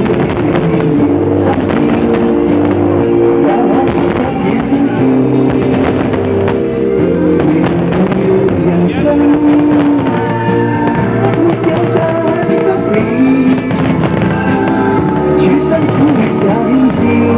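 Music with guitar and sustained chords, loud and steady, with firework bangs and crackles sounding through it.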